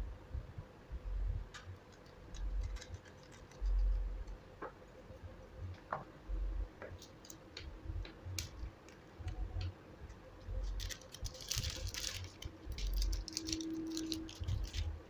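Small metallic clicks and ticks of tiny screws and a small screwdriver being handled while a laptop hard drive is readied for its mounting bracket, with a quick run of clicks near the end. Dull low bumps of hands and parts against the work table.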